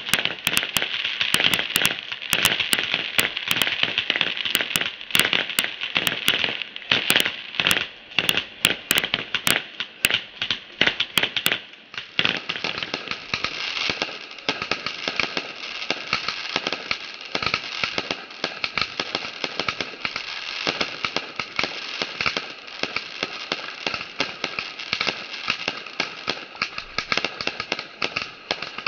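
Multi-shot fireworks cake firing in rapid succession: a dense string of small bangs and crackling from the shots and their bursts. About twelve seconds in it turns into a denser, continuous crackle.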